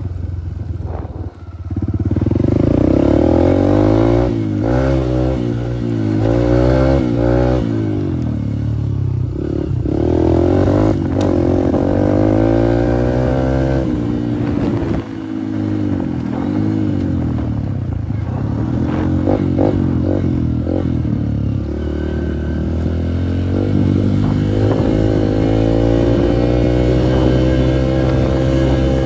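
Dirt bike engine under way, revving up and down: its pitch repeatedly climbs and then drops back as the throttle is opened and closed, with a brief drop about a second in.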